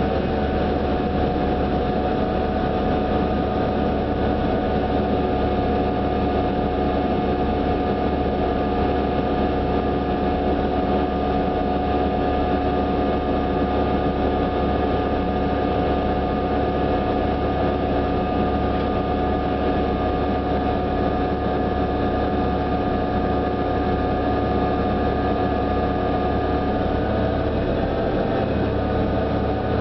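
New Flyer DE42LFA diesel-electric hybrid bus heard from on board, its drivetrain giving a steady whine of several held tones over a low engine hum, the pitch shifting slightly near the end. This is the unusual sound that sets this bus apart.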